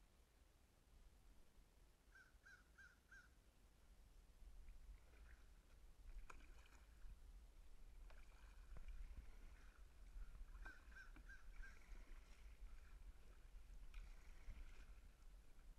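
Faint, muffled sound heard through a sealed waterproof camera housing: a low rumble with a few soft knocks of kayak paddling. Twice a bird gives a quick series of four short, evenly spaced call notes, about two seconds in and again past the middle.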